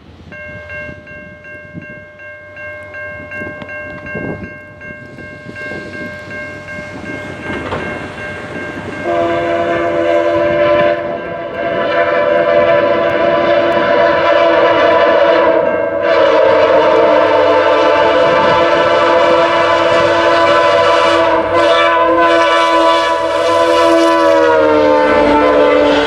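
Multi-tone air horn of an approaching VIA Rail EMD F40PH-2D diesel locomotive sounding long blasts, growing much louder as the train closes in at speed. Its chord drops in pitch near the end as the locomotive passes.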